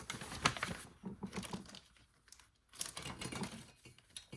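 Plastic kit parts bags crinkling, with small plastic parts clicking, in three bursts of handling and rummaging.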